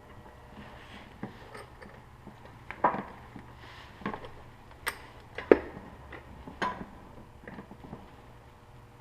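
Metal parts knocking and clinking in separate sharp strikes, five louder ones about a second apart in the middle, as the rear axle is worked through a motorcycle's wheel hub, spacers and swingarm.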